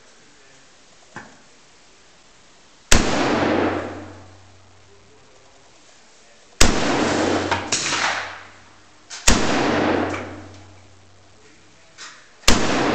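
Single shots from an AK-pattern rifle, four in all, about three seconds apart, each trailing off in about a second of echo.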